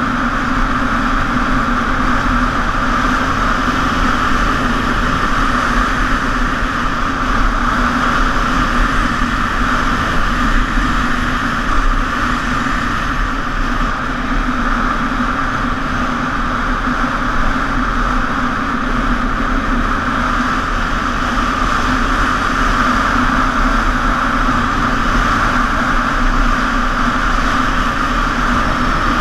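ATV engine running steadily while the quad is ridden along a dirt track, a constant drone that hardly changes in level.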